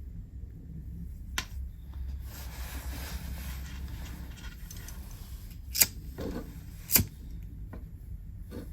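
Small sharp clicks and taps of hands handling wires, connectors and tools at a workbench, the two loudest about six and seven seconds in, over a low steady hum.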